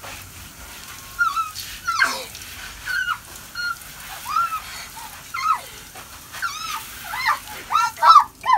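A girl squealing in short, high-pitched bursts again and again as a garden hose sprays her with water, the spray hissing steadily underneath. The squeals come faster and louder near the end.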